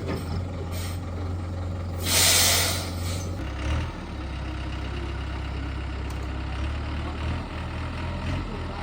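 Excavator's diesel engine running steadily at a low drone while it loads logs, with a loud hiss of air about two seconds in, lasting about a second.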